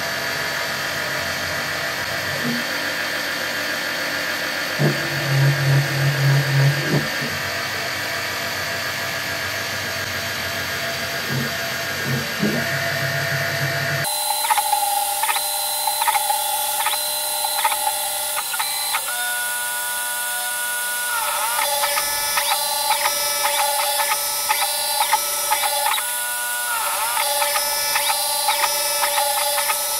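CNC-converted Optimum BF20L milling machine running, its spindle turning a 10 mm four-flute carbide end mill at 3000 rpm into a UHMWPE block, with the axis motors humming through short moves. About halfway through, the sound jumps to 6x sped-up playback, and the axis motors' whine becomes fast, high tones that step up and down in pitch.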